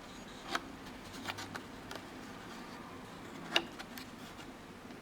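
A few light, separate clicks and taps from the metal watch movement holders being handled, the sharpest about three and a half seconds in.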